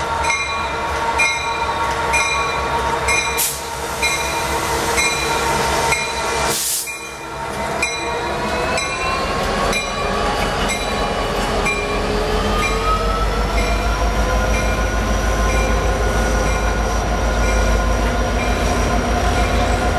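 Norfolk Southern EMD GP60 diesel-electric locomotive passing at close range, followed by loaded ballast hopper cars rolling by. A ringing repeats a bit under twice a second through the first half. From about halfway, high squealing tones from the wheels rise and then hold over a deepening rumble of the cars.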